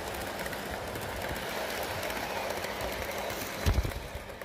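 Model train coaches running past on outdoor garden-railway track: a steady rumble of wheels on rail with rapid small clicks over the rail joints. There is a low thump near the end, then the sound falls away as the train passes.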